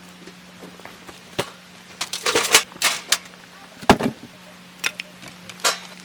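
Irregular clicks, knocks and rustles of things being handled, with the heaviest knock about four seconds in, over a faint steady low hum.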